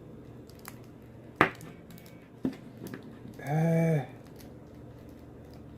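A few sharp plastic clicks from the stiff joints of a NECA action figure being worked as its legs are posed, the loudest about a second and a half in. A short hummed "mm" from a man's voice comes just before the four-second mark.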